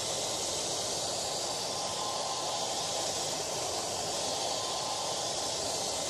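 Hair dryer running steadily, an even rush of blown air with a faint steady whine.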